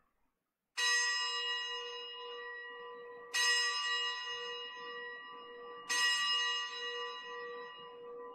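A bell struck three times, each strike ringing out and fading slowly before the next, rung at the elevation of the consecrated host during Mass.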